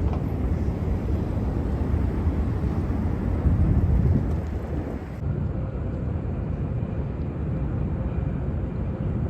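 Steady low outdoor rumble, heaviest in the bass and fluttering unevenly, like wind on the microphone mixed with city noise, with an abrupt change in its sound about five seconds in.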